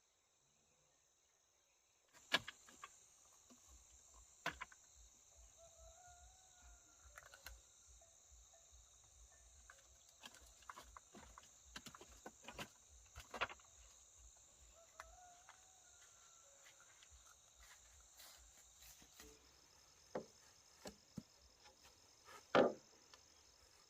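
Insects chirring in a steady high band, with scattered sharp knocks and clicks and a few faint wavering animal calls.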